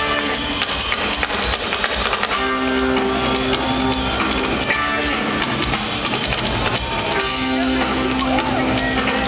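Live rock band playing in an arena, heard from the crowd: electric guitars over a drum kit, with long held notes and a note that bends up and back down near the end.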